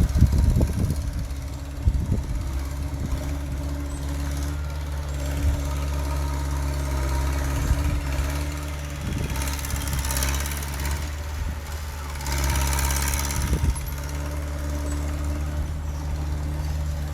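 Heavy diesel engine of earthmoving machinery running steadily, with several metallic knocks and clanks and two short bursts of rushing noise near the middle.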